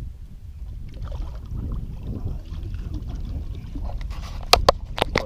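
Outdoor wind rumble on the microphone aboard a skiff, with four sharp knocks about four and a half to five seconds in, likely something striking the boat.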